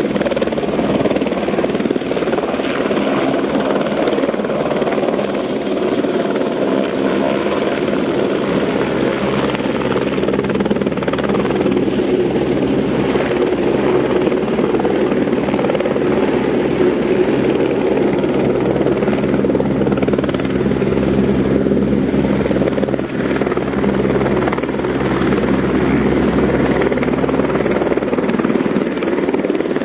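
Eurocopter AS350 AStar (Airbus H125) helicopter's turbine and rotor running steadily and loudly. The deep rotor tones grow stronger in the second half.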